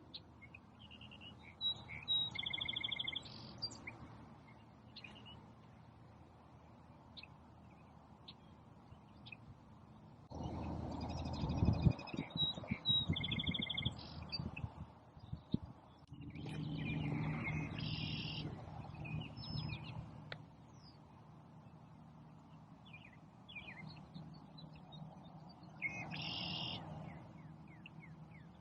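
A songbird singing the same short, buzzy trilled phrase four times, several seconds apart, with faint chirps between. A low rushing noise swells for a few seconds around the middle.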